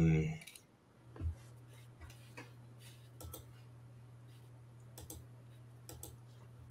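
Sparse, irregular light clicks over a steady low electrical hum from an open microphone.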